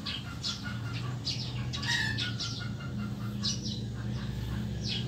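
Small birds chirping, many short high chirps, over a steady low hum.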